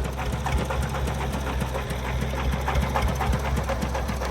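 Single-cylinder diesel engine of a công nông farm truck running with a rapid, even knocking beat over a steady low drone.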